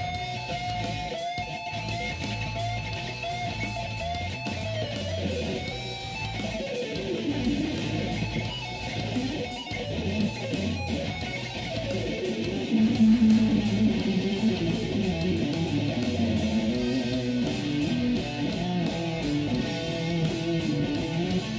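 SG-style solid-body electric guitar played lead, with bent and sliding notes: a long falling slide about a third of the way in, and a loud held low note a little past halfway.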